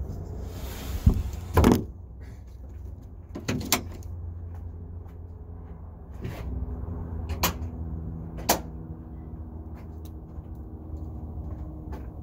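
Clunks and sharp clicks of an RV's rear engine compartment door being handled and latched, the loudest knock a little under two seconds in and two more sharp clicks later, over a steady low hum.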